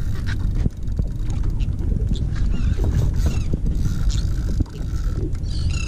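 Steady low rumble of wind on the microphone and water around a small boat, with scattered light clicks and faint high chirps over it.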